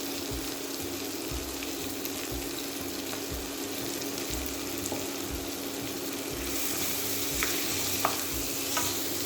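Onion, garlic, bell pepper and tomato strips sizzling in hot oil in a pan as they are stirred, with a steady low hum underneath. The sizzle grows louder about six and a half seconds in, and a few light clicks of the utensil on the pan come near the end.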